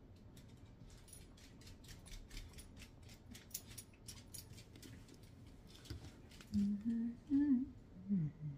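Light, irregular clicks and scrapes of a plastic drinking straw dabbing and spreading glue on a painted metal jar lid. Near the end come a few short, low voiced sounds that rise and fall.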